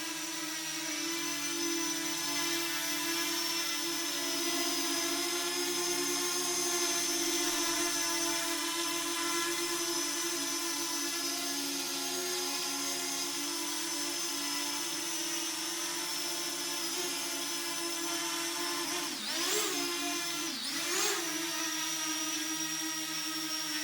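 Parrot Anafi quadcopter hovering, its four propellers giving a steady high whine. About three-quarters of the way through, the pitch briefly dips and swoops back up twice, a couple of seconds apart, as the motors change speed.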